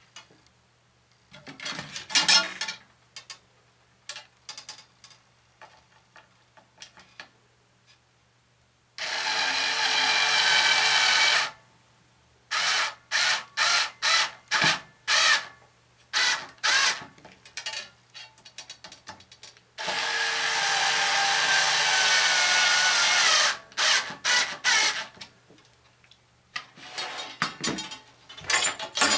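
Cordless drill driving screws into a wooden boom to fix antenna elements in place: a run of about two and a half seconds, then a string of short trigger-pulsed bursts, then a longer run of about three and a half seconds and a few more short bursts. Small clicks of handling come before the first run.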